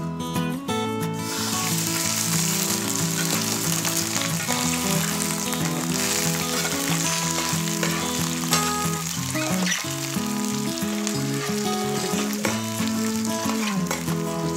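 Whole shrimp sizzling as they fry in hot oil in a nonstick pan, pushed about with a spatula. The sizzle starts about a second in and then holds steady.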